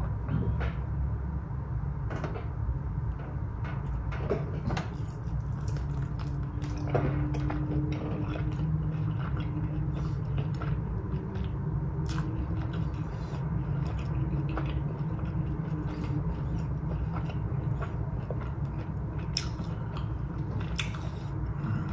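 A person chewing and biting into buffalo chicken wings, with scattered small clicks and smacks, over a steady low background hum.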